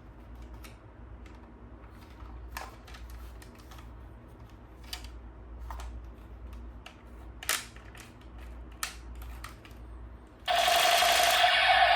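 Scattered sharp plastic clicks from a toy gun being handled. Near the end a loud, steady mechanical buzz starts abruptly and keeps going.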